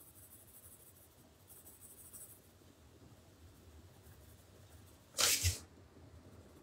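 Wax-based Derwent Chromaflow coloured pencil scratching faintly on drawing paper as a colour swatch is shaded, in two short spells. About five seconds in comes a brief louder rustle with a low thump.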